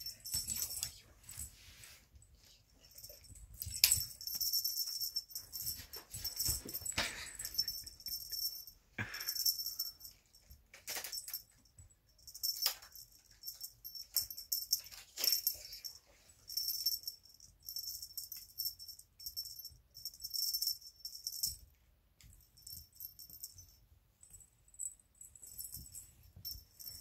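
A small bell on a feather wand cat toy jingling in irregular shakes as a kitten bats, bites and tugs at it, with soft scuffs and knocks of paws and toy on a fluffy blanket.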